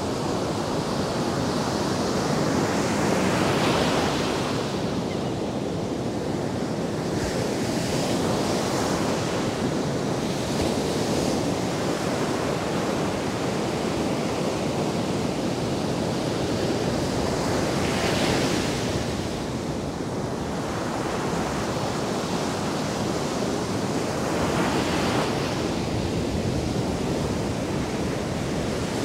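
Ocean surf breaking and washing up a sandy beach: a continuous rush that swells every several seconds as waves break.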